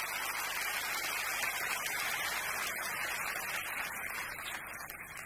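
An audience applauding: a dense, steady clapping that dies away near the end.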